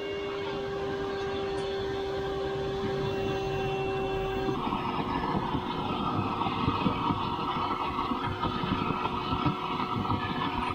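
Shop vac motor running with a steady whine, pulling suction on the tractor's hydraulic oil fill so the fluid doesn't pour out while the hydraulic filter is unscrewed. About four and a half seconds in the whine weakens and a rushing hiss comes in.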